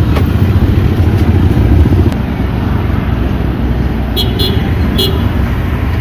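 Motorcycle and tricycle traffic passing close by, engines running, loudest in the first two seconds. A few short, high-pitched beeps sound between about four and five seconds in.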